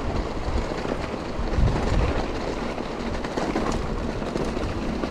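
Mountain bike rolling down a rough dirt trail: a steady rumble of the tyres over the ground, with frequent small knocks and rattles from the bike.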